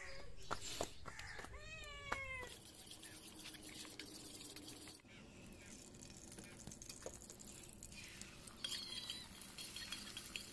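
A short animal cry that rises and falls in pitch, about one and a half seconds in, over faint background; a few faint high calls come near the end.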